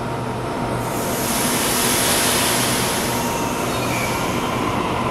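Double-deck electric passenger train starting to depart, its equipment humming steadily. About a second in a loud hiss of air starts and fades over a few seconds, typical of the brakes releasing as the train moves off.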